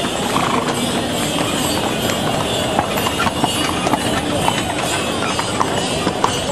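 Horses' hooves clip-clopping on sandy ground as horse-drawn carriages and a rider pass, with many short irregular hoof strikes over a steady murmur of crowd voices.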